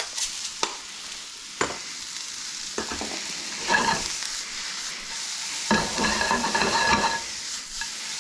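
Cabbage and onion sizzling in a skillet, stirred with a utensil. There are a few clicks early on and louder scraping against the pan around four seconds in and again from about six to seven seconds.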